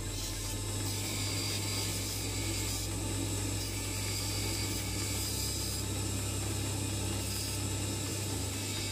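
Bench grinder running steadily with a small piece of old handsaw steel held against the wheel: an even motor hum under a continuous grinding hiss as the steel is ground to shape.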